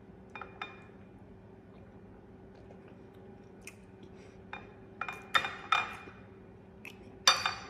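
Metal fork clinking and scraping against a bowl while eating. There are a few light taps at first, then louder clinks and scrapes in the second half, the loudest near the end, over a faint steady hum.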